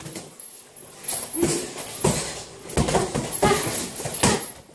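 Boxing sparring: gloved punches landing, about half a dozen sharp knocks in irregular quick flurries after a quieter first second.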